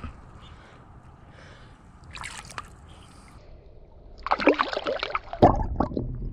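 Shallow water splashing and sloshing as a pike is released by hand: faint trickles at first, then loud splashing about four seconds in, heaviest near the end.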